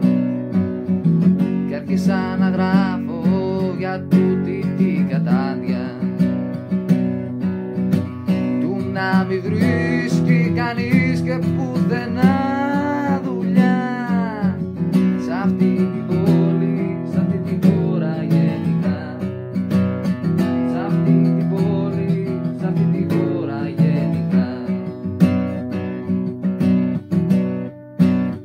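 Acoustic guitar with a capo, strummed and picked in a steady chordal accompaniment. A wavering melody line rises and falls over it about ten to fifteen seconds in.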